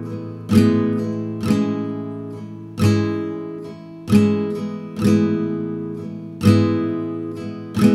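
Background music: an acoustic guitar strumming chords, about one strum a second, each chord ringing down before the next.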